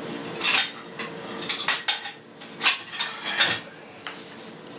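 Kitchenware clattering as it is handled: plates and plastic cheese moulds knocking on the table, about seven short clatters, then quieter near the end.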